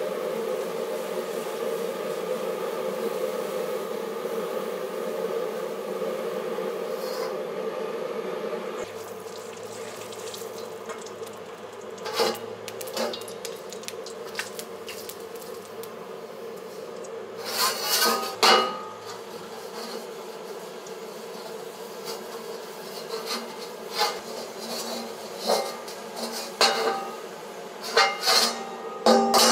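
A jet wok burner's steady buzzing drone under a carbon steel wok being seasoned over high heat. The drone drops somewhat about nine seconds in. After that come scattered clanks and scrapes of the wok against the burner as it is oiled and tilted on the flame.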